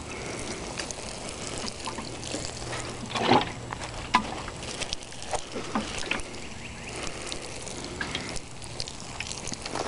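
Water pouring from a watering can's rose onto grass and soil, a steady spattering trickle with a few sharper taps, the loudest about a third of the way in.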